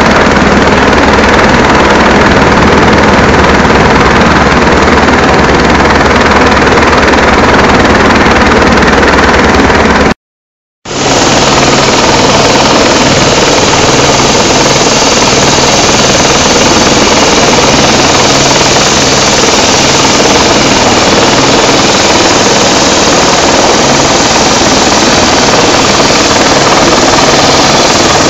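Rescue helicopter hovering low: loud, steady rotor and engine noise with a fast low beat of the rotor blades. It cuts out briefly near the middle.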